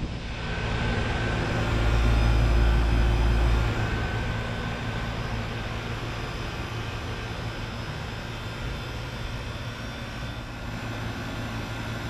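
2002 Lennox Merit 10 SEER 1.5-ton heat pump outdoor unit running in cooling mode: the compressor and condenser fan make a steady hum. About two seconds in, a deeper low rumble swells for under two seconds, then the hum settles back to an even level.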